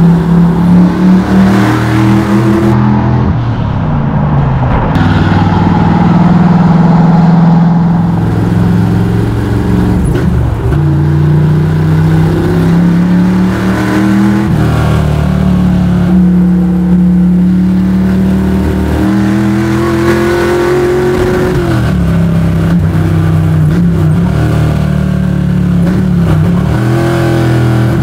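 Small-block Chevy V8 of a square-body Chevy C10 drift truck revving hard. Its pitch is held high for a few seconds at a time, then dips and climbs again several times.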